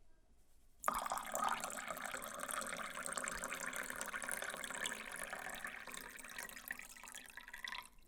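Water pouring in a steady stream into a container, starting suddenly about a second in and stopping abruptly near the end.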